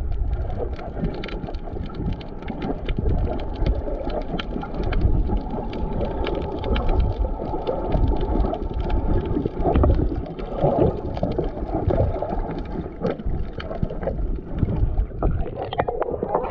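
Muffled underwater rushing and gurgling of water heard through a submerged camera while snorkeling, dotted with many faint crackles and clicks. Near the end the camera comes up out of the water and the sound opens up.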